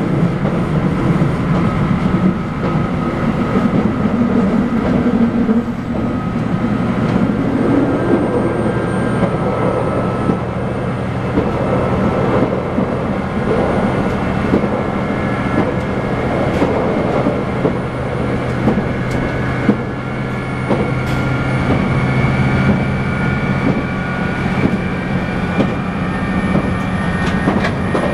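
Interior running sound of a JR Shikoku N2000 series diesel tilting express: the diesel engines drone under a steady wheel and rail noise. A low engine hum strengthens about six seconds in, and there are occasional clicks over the rails.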